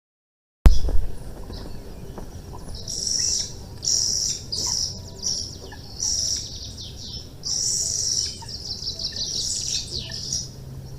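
Small birds chirping and twittering in high, rapid phrases of about a second each, repeated over and over. The sound drops out for a moment right at the start.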